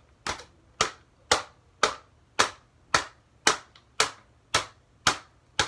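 A wooden stick striking a crumpled sheet of paper held in the hand, about two hits a second, eleven in all. Each hit is a short, flat papery smack.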